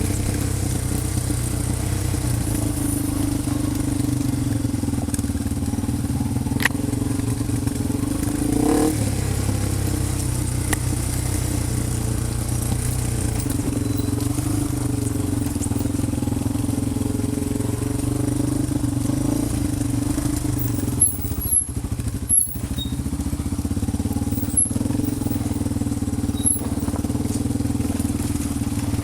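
A vehicle engine running steadily at an off-road park, with a few sharp clicks and knocks in the last third.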